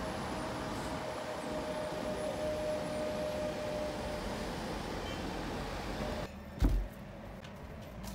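Steady road-traffic noise from an elevated road, an even wash with a faint steady tone in it, which stops about six seconds in. Then a single dull thud.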